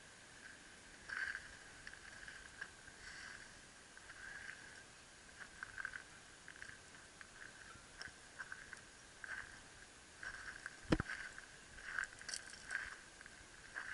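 Footsteps crunching on shingle, irregular short crunches every half second or so, with one sharper knock about eleven seconds in.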